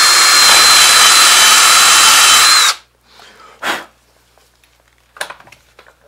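Power drill running at steady speed with a high whine, its twist bit boring a hole into a wooden block. It stops abruptly a little under three seconds in, and a couple of light knocks follow.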